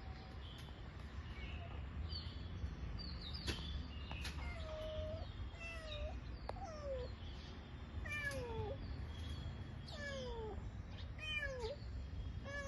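Kitten mewing over and over: a run of short, high calls, most falling in pitch, coming about once a second from a few seconds in.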